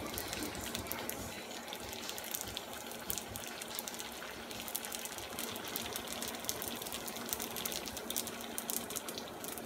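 Veggie spring rolls deep-frying in hot oil: a steady sizzle with many fine crackles.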